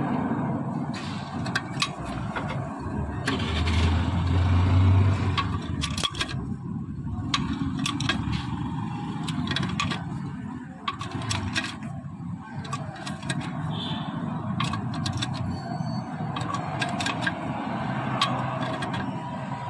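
Old cylinder sleeve being drawn out of a Mahindra Bolero Pickup engine block with a screw-type sleeve puller: irregular clicks and creaks of the puller being turned and the sleeve scraping up its bore, over steady workshop noise. A low rumble swells about three and a half seconds in and fades two seconds later. The sleeve is coming out so that new sleeves can be fitted to a bore damaged when the No. 3 piston seized.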